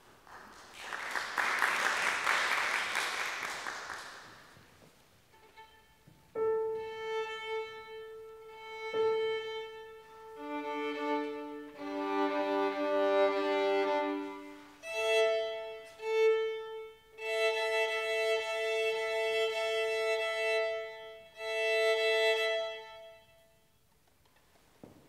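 Audience applause for the first few seconds, then a violin being tuned before the piece: a held A, then open strings bowed two at a time in fifths (D with A, G with D, A with E), each pair sounded several times.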